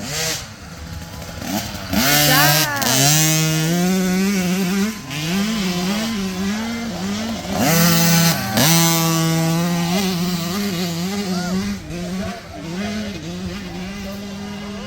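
Small dirt bike engines revving and shifting up and down as riders pass on the course, with two louder passes close by about two and eight seconds in.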